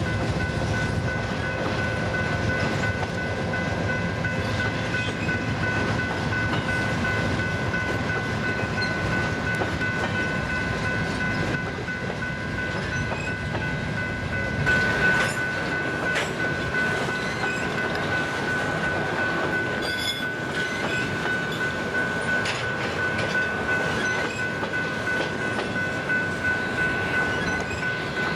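Train passing, its wheels clattering steadily on the rails, with a steady high tone held throughout.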